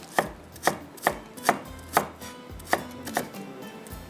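Kitchen knife chopping a piece of fresh ginger on a wooden cutting board: about seven sharp strikes, roughly two a second, with a brief pause midway.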